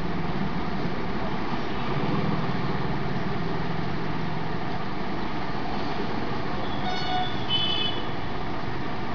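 Steady background road-traffic noise with engine rumble, and a short high-pitched beep about seven seconds in.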